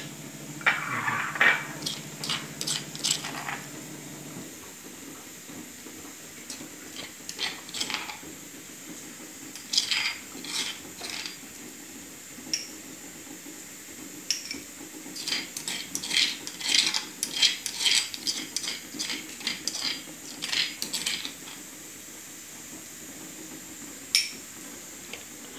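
Steel spoon scraping and clinking against a stone mortar and a glass bowl while scooping out garlic chutney paste: irregular runs of sharp clicks and scrapes with short pauses between them.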